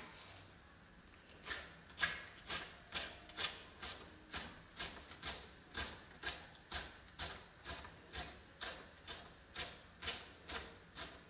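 Kitchen knife chopping coriander leaves on a wooden cutting board: a steady run of short knocks, about two a second, starting about a second and a half in.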